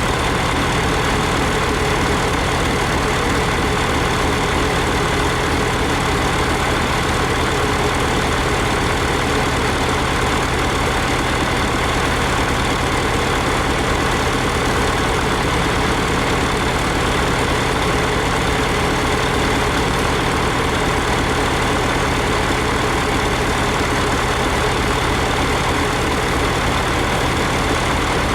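Old farm tractor and silage machinery running steadily at a constant speed: a continuous engine hum with dense mechanical noise and no change in pace.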